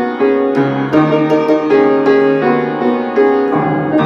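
Upright piano played with both hands: chords and melody notes struck about twice a second, each held and ringing into the next.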